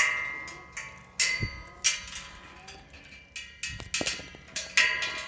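Metal clinking and clanging, about five strikes with short ringing tones after them.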